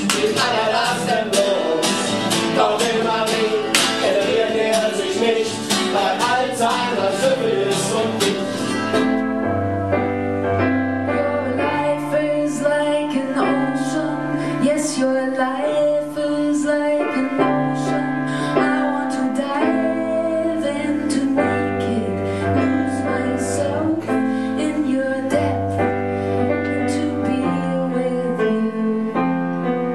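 Live stage music: a busy passage with acoustic guitar and singing, which gives way about nine seconds in to calmer keyboard chords over slowly changing bass notes.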